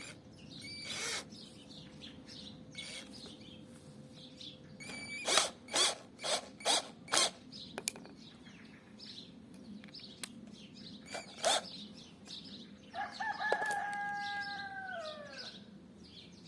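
A rooster crowing once near the end: a held call that drops in pitch as it trails off. Earlier comes a quick run of about five sharp knocks, the loudest sounds here, with a few single knocks before and after.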